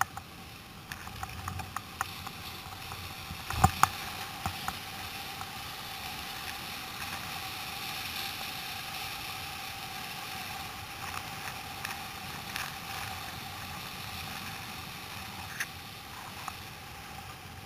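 Surf foam rushing and hissing around a sit-on-top kayak's hull as it rides a broken wave in toward the beach. A couple of sharp knocks about four seconds in, with a few smaller clicks later.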